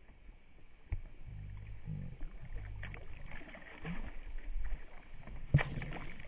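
Knocks and bumps on a fishing boat's hull as gear is handled: a sharp knock about a second in, another near the end, and low, uneven humming sounds between them.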